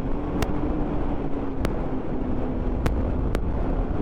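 Snowmobile's Yamaha-built 1049 cc four-stroke triple running at a steady speed while under way, a loud even rumble with a steady engine tone. Four sharp clicks cut through it.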